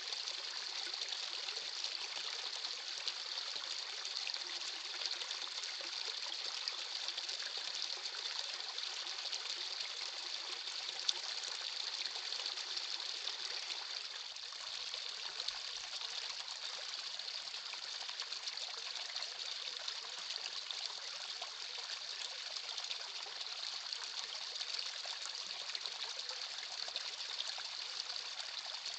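Shallow rocky creek trickling over stones: a steady, even wash of running water.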